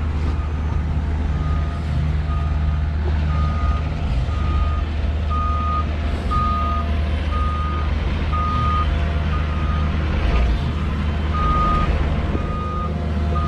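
Cat mini excavator's travel alarm beeping steadily, one beep about every 0.7 s, as it tracks, over the low drone of its diesel engine.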